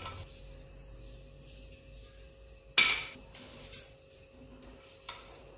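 Steel spoon clinking against an aluminium pot as oil is spooned in. There is one sharp clink that rings briefly about halfway through, then two fainter knocks.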